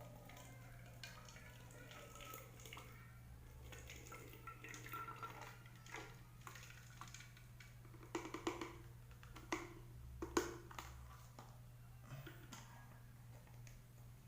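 Liquid poured from a glass into a plastic bottle: faint trickling with a few clicks and knocks as the glass and bottle are handled, the knocks sharpest about eight to ten seconds in. A low steady hum runs underneath.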